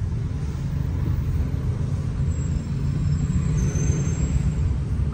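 Car cabin noise while driving: a steady low rumble of engine and road noise, heard from inside the car.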